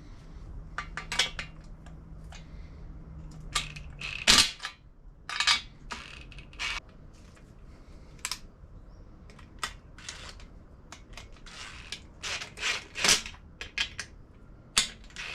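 Irregular metallic clinks, taps and rattles of fittings and tools being worked onto a two-stroke dirt bike's exhaust pipe, as an air pressure gauge and inlet valve are fitted. A low hum runs underneath and stops about four seconds in, at a louder clank.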